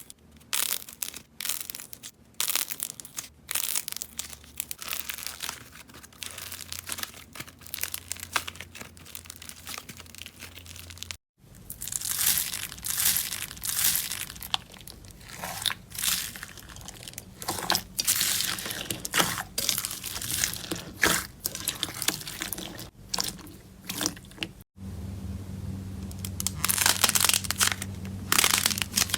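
Slime being pressed and squished, making a dense run of crackling, crunching clicks. Two abrupt breaks split it into three separate stretches.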